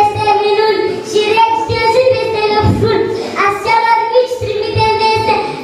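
Young children singing a song together in unison, holding each note for about half a second to a second.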